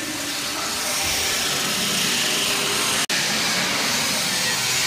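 Automatic preform box loader running as it tilts its stainless-steel tipping hopper: a steady machine whir and hiss. It cuts out for an instant about three seconds in.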